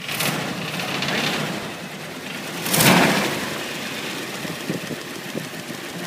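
1959 Ford Thunderbird's V8 idling smoothly, with one brief louder swell about three seconds in.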